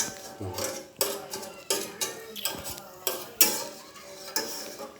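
A spoon stirring a pot of heating ginger and palm-sugar drink so the sugar dissolves. It knocks against the pot's sides in repeated clinks that ring briefly, about one or two a second.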